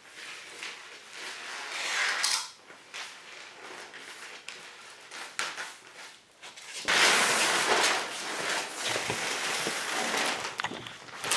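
Razor knife slicing through a sheet of foil radiant barrier, with soft scraping and rustling of the foil. About seven seconds in, the cut sheet is pulled free and lifted, and it crinkles loudly.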